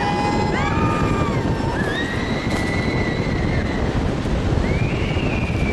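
Long, high-pitched human yells during a bungee jump's free fall, three of them, each held for a second or more and bending up and then down in pitch. Under them runs a steady rushing noise of wind and the river in the gorge.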